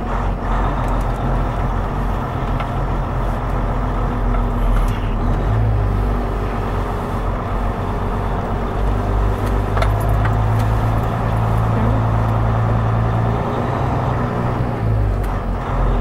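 Semi truck's diesel engine running as the truck drives slowly, heard from inside the cab: a steady low drone that grows stronger for most of the middle of the stretch.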